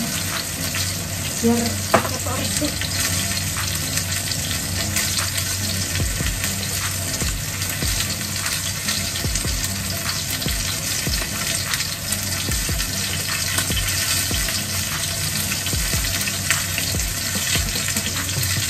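Food frying and sizzling in a pan, a steady crackle throughout over a low steady hum, with a sharp click about two seconds in.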